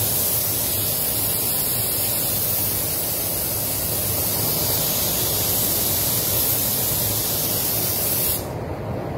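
Compressed-air paint spray gun hissing steadily as a full coat is sprayed on during a spot repair. The trigger is released about a second before the end and the hiss cuts off suddenly.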